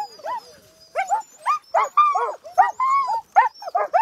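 A team of Alaskan husky sled dogs yipping, barking and whining in quick, overlapping rising-and-falling cries: the dogs are fired up and want to keep running.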